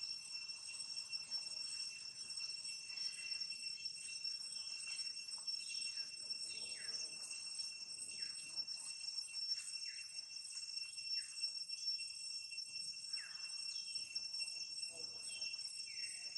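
Steady insect drone from crickets or cicadas, holding two high even tones with a faster pulsing buzz above them. Short falling chirps come and go over it, several of them in the second half.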